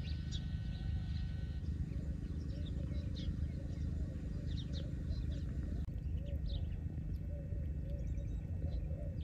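Small birds chirping in short, scattered calls over a steady low rumble, with a quieter run of soft repeated calls lower down in the second half.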